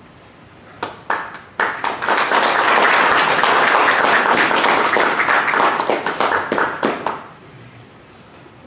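Audience applauding: a few scattered claps, then steady applause for about five seconds that dies away in a few last claps.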